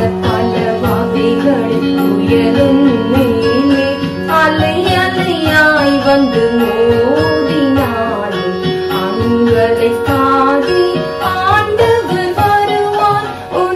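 Music from a devotional song: a melody with gliding, long-held notes.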